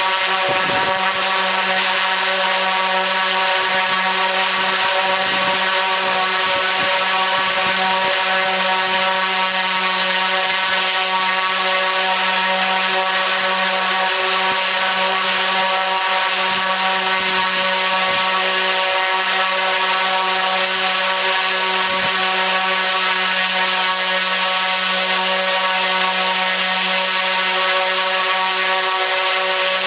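T-Motor U13 100kV brushless motor spinning a 29x9.5 three-blade carbon propeller at full throttle: a loud, steady propeller drone with a strong low hum and many overtones, its pitch holding even throughout.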